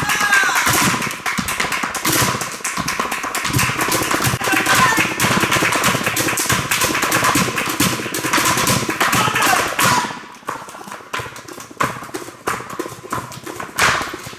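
Dense, rapid tapping and clicking that thins out to scattered taps about ten seconds in, with a few brief voice-like sounds among it.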